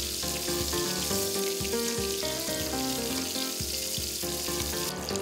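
Bacon-wrapped asparagus rolls sizzling steadily in hot fat in a frying pan, with background music playing over it.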